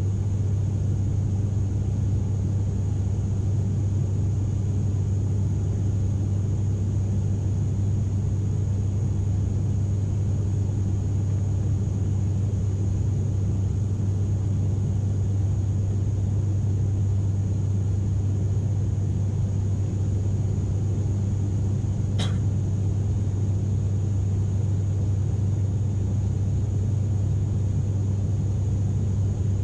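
Steady cabin drone of an ATR turboprop airliner at climb power after takeoff: a deep, even hum from the propellers and engines with a thin high whine above it. A single short click about three-quarters of the way through.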